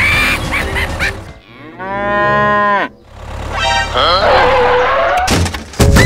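A cow mooing once: one long call about two seconds in that rises and then falls in pitch. A sharp hit near the end is the loudest sound.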